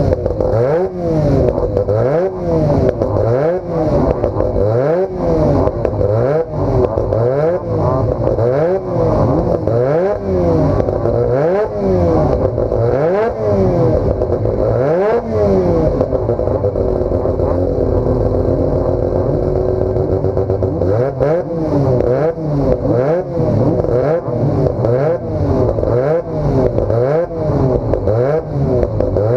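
Hotrod's rotary engine revved over and over while stationary, its pitch rising and falling about once a second as the throttle is blipped, settling into a steadier idle for a few seconds past the middle before the blipping resumes.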